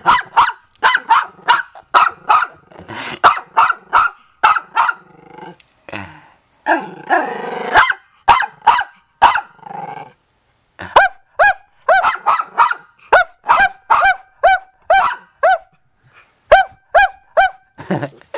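Small terrier puppy, a Yorkshire terrier type, barking in a long run of rapid high-pitched yaps, about two to three a second, with one longer drawn-out bark about seven seconds in and a short pause near ten seconds.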